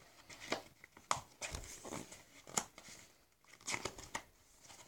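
Pages of a picture book being handled and turned: paper rustling and crinkling in a series of short, irregular rustles and light clicks.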